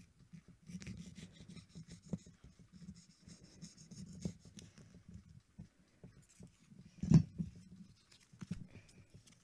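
Utility knife cutting and scraping, an irregular scratching and rubbing, with one sharp knock about seven seconds in.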